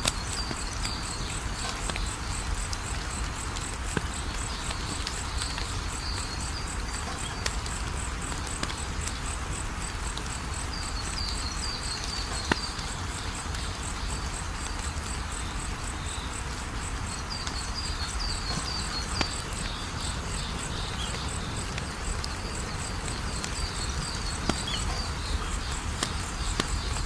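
Wood fire crackling with a few sharp pops over a steady hiss, while insects trill steadily in rapid even pulses, with short clusters of high chirps now and then.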